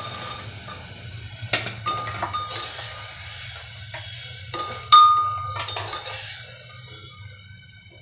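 Green peas sizzling in hot oil in a metal handi as they are stirred in, with a metal spoon knocking and scraping against the pot several times; the loudest clink rings about five seconds in. The sizzle dies down near the end.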